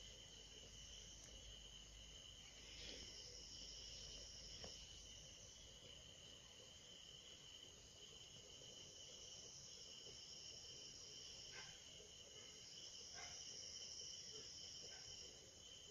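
Faint, steady, high-pitched insect chirring, with a few soft ticks here and there.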